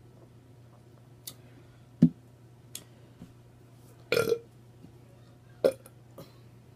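A woman burping: one burp about four seconds in and a shorter one over a second later. A single sharp click or knock about two seconds in is the loudest sound, with a few faint clicks besides.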